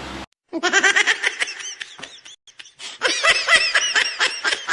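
A person laughing in quick, high-pitched peals of short 'ha' pulses, cutting in suddenly just after the start. The laughter thins out about two seconds in and picks up again about three seconds in.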